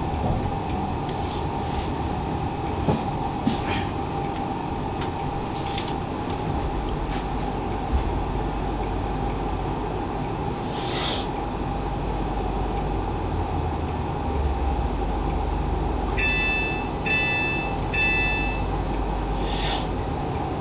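Inside a passenger train coming to a stand at a station: a steady hum from the train's equipment over a low rumble, with a few short hisses of air. Near the end come three short electronic beeps about a second apart, the train's door-closing warning.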